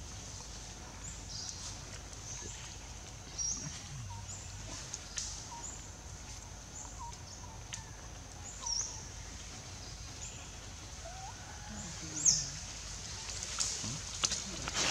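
Scattered short, high-pitched animal chirps and squeaks over a faint outdoor background, with one louder squeak about twelve seconds in.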